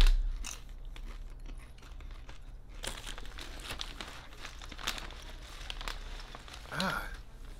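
Crinkly plastic tortilla-chip bag rustling as a hand rummages inside it for chips, after a low thump at the very start.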